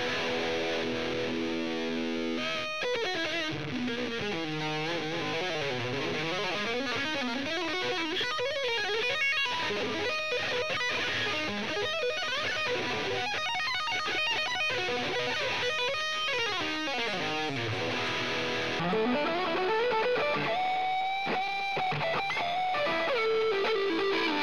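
Electric guitar playing fast shred runs that sweep up and down in pitch. About two-thirds of the way through, the playing changes to rising slides and longer held notes with vibrato.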